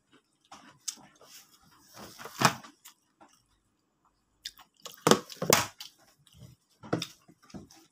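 Eating sounds close to the microphone: chewing and mouth smacks in short irregular bursts, the loudest about two and a half and five seconds in.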